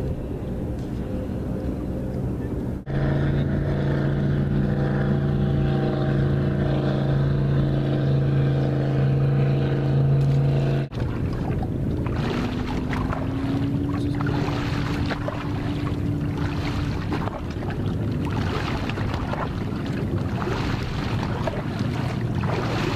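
Boat motor running steadily at one speed for several seconds, then cutting off abruptly to wind and water noise, under which a fainter motor tone rises and holds for a few seconds.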